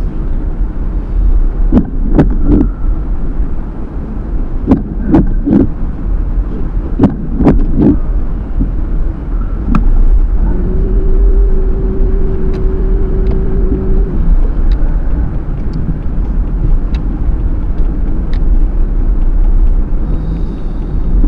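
A car's engine and tyres rumble low and steady, heard from inside the cabin while it drives slowly. In the first half there are groups of two or three sharp knocks, and about halfway a steady hum comes in for a few seconds.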